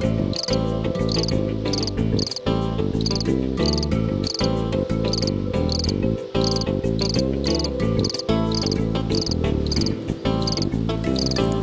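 Background music of held, stepping notes, with a high cricket-like chirp repeating about one and a half times a second.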